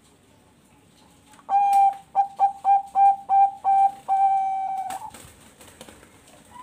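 Bangkok-type perkutut (zebra dove) cooing one full song phrase: a clear held note, a quick run of about six short notes, then a long held final note.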